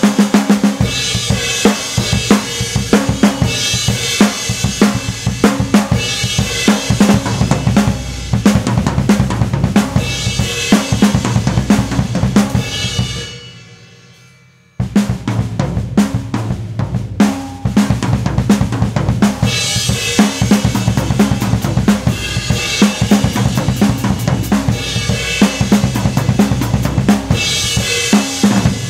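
A drum kit played hard, with snare, bass drum and crashes on 20-inch Zildjian S-series crash cymbals. The playing comes in two passages. The first rings out about halfway through, and the second starts with a hit about a second and a half later and rings out near the end.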